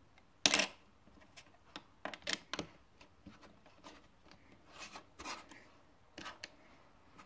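Plastic Lego bricks clicking and clacking as they are handled and pressed together. There is a sharp cluster of clicks about half a second in, then scattered small clicks.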